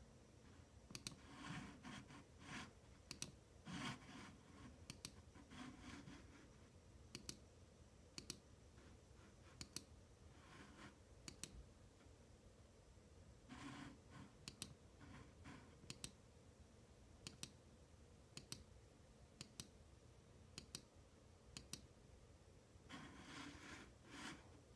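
Faint, irregular clicks of a computer mouse, roughly one a second, with a few soft rustles in between.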